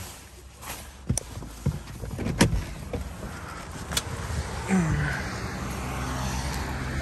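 A car's idling engine stops right at the start, followed by several sharp clicks and knocks from the car's door and fittings as the driver gets out after parking. A steadier rushing noise takes over in the last couple of seconds.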